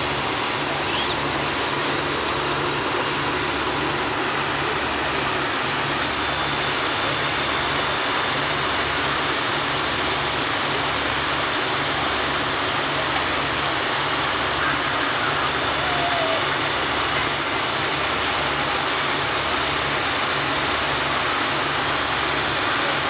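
Steady rushing noise of fire engines running their pumps and hose streams spraying water, with a regular low throb underneath.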